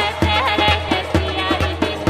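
House music from a DJ-mixed dance track: a steady four-on-the-floor kick drum at about two beats a second under a sliding, wavering melodic line.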